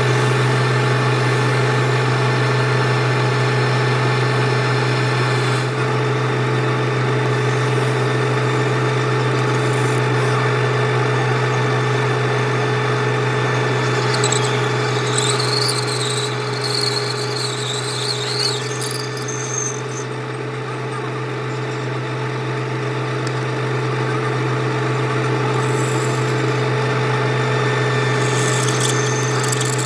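Metal lathe running steadily with a constant hum. A wavering high squeal from metal cutting starts about halfway through, lasts several seconds, and briefly returns near the end.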